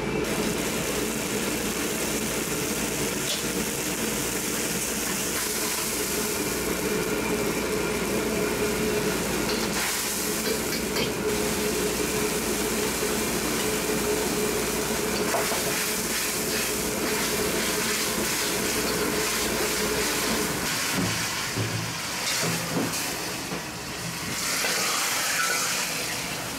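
Steady roar of a kitchen wok burner and exhaust while a soy sauce simmers in the wok, with a few clinks of the steel ladle. The low rumble drops away about three-quarters of the way through, and the sauce is then poured out.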